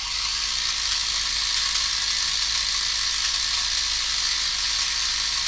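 Holy Stone HS155 mini drone's motors and propellers running with a steady whir that starts abruptly. This is the abnormal noise that the owner puts down to grass and small stones drawn in through the air duct after a hard landing and caught in the drive.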